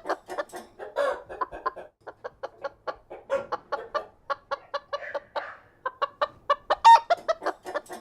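Chickens clucking in quick runs of short clucks, with one louder, longer call about seven seconds in.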